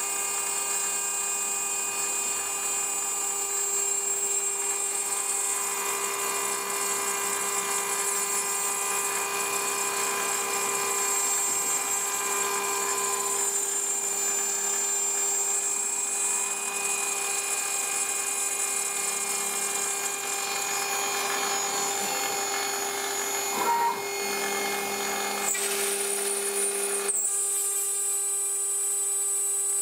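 A 6040 CNC router's spindle whining steadily as its end mill cuts parts from clear plastic sheet, with a steady hum underneath. About three-quarters of the way through there is a short sharp blip, and the cutting sound changes pitch for a couple of seconds before settling back.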